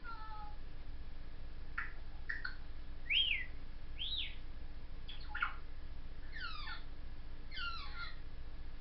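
Congo African grey parrot whistling a string of short notes: quick upward chirps, two arched whistles that rise and fall, then falling glides near the end.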